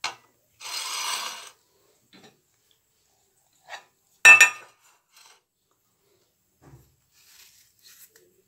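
A stainless steel pot set down on a stone countertop about four seconds in: one sharp metallic clang that rings briefly. A short scrape comes about a second in, and faint small knife clicks on an apple come near the end.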